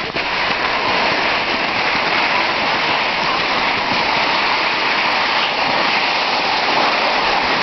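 Steady rushing hiss of movement down a snowy slope, the sound of sliding over snow and air rushing past the microphone.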